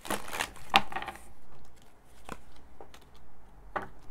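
A deck of tarot cards shuffled by hand: a papery rustle with clicks in the first second, then a few separate light clicks as cards are handled and drawn.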